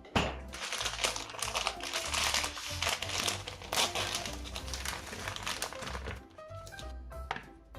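Dense crinkling, crackling noise for about six seconds, with one more short burst near the end, over background music.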